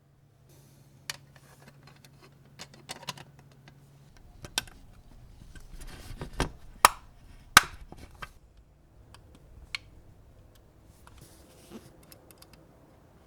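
Hands working on a small model car at a workbench: a string of light clicks and taps, with two sharp clicks a little under a second apart about seven seconds in.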